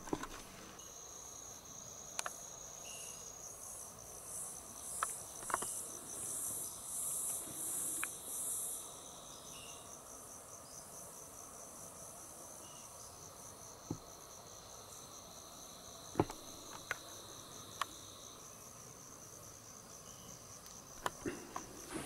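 Insects trilling: a steady high-pitched trill throughout, and a second, lower trill that stops near the end. A louder pulsing buzz sits higher up from about four to nine seconds in. A few faint clicks are scattered through.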